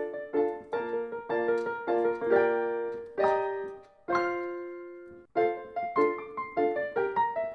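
Background piano music: struck notes and chords that fade, a long held chord fading out near the middle, then a quicker run of notes.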